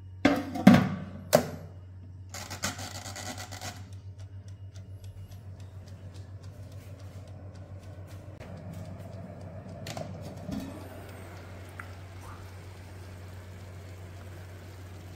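Halogen convection oven's lid being set onto its glass bowl with a few clunks, then a short ratcheting rasp as a control dial is turned, leaving a steady low hum.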